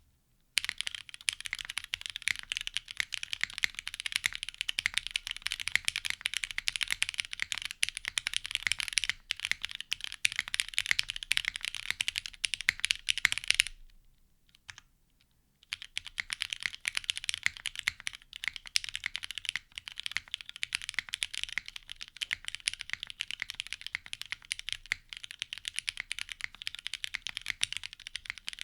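Typing on a plateless Laminar Design Sagrada mechanical keyboard with lubed and filmed Cherry Nixie switches and GMK Cafe keycaps. Fast, dense keystrokes for about 13 seconds, a pause of about two seconds, then typing again at a normal pace.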